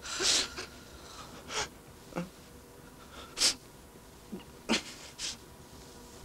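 A person's short breathy sniffs and snorts, about seven of them spaced irregularly, the strongest near the start and about three and a half seconds in, over a faint steady hum.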